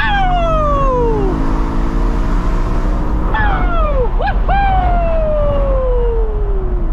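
BMW M3's V8 engine, heard from inside the cabin, its revs falling slowly twice. About four seconds in there is a quick dip and rise in revs before they sink again.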